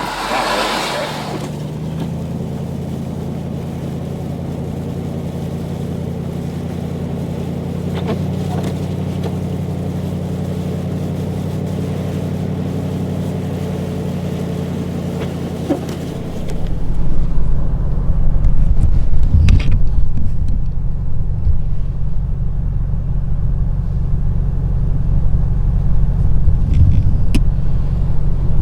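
A car engine running with a steady low hum. About sixteen seconds in it gives way to a louder, rougher low rumble.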